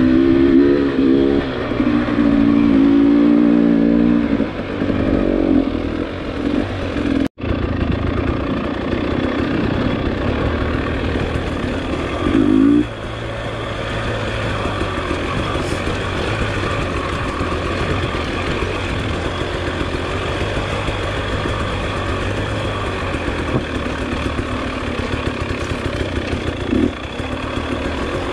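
Dirt bike engine running, revving up and down for the first few seconds. The sound cuts out for an instant about seven seconds in, then the engine runs steadier at lower revs, with a short rev about twelve seconds in.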